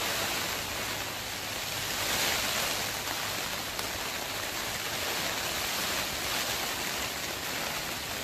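Steady rain falling on the plastic cover of a hoop greenhouse, heard from inside as an even hiss that swells slightly about two seconds in.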